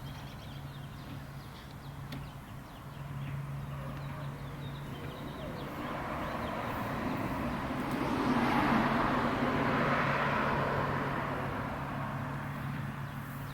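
A passing car's road noise swells gradually to a peak about eight to ten seconds in and fades again, over a steady low hum.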